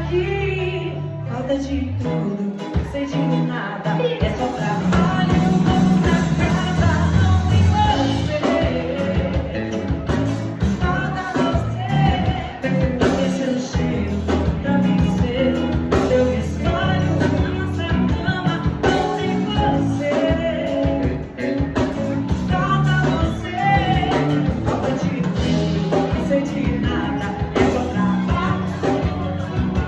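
Live pagode music, a samba-style band playing with a steady beat.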